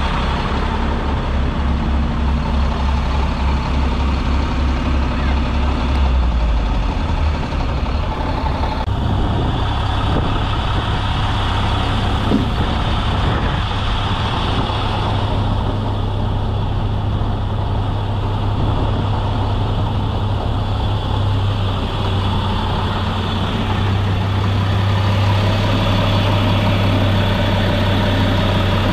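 A Sterling L7500 vacuum truck's engine idling steadily, a low drone whose deepest note shifts about eight seconds in.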